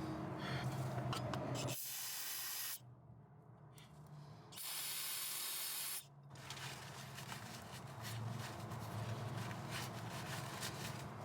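Aerosol spray can hissing in two bursts of about a second each, about two and five seconds in, as the ABS wheel-speed sensor is cleaned and lubricated. Light clicks of handling come before and after.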